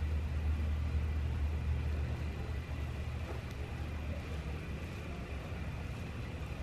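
Steady low rumble with a faint, steady high-pitched whine: the background noise of a large indoor hall.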